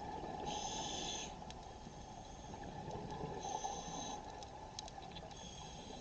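Scuba diver's breathing heard underwater: the regulator hisses on each inhalation, three breaths roughly two and a half seconds apart, over a low burble of bubbles and water noise, with a few faint clicks in the second half.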